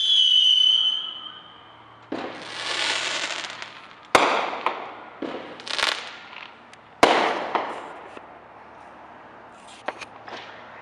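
Fireworks: a shrill whistle for about the first two seconds, then a rising hiss and two sharp bangs, about four and seven seconds in, each trailing off with crackle. A few small pops come near the end.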